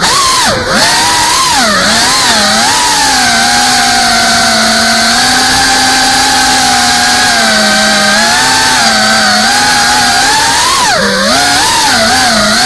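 FPV quadcopter's brushless motors and propellers whining. The pitch dips and rises with quick throttle changes in the first couple of seconds and again near the end, and holds steady through the middle.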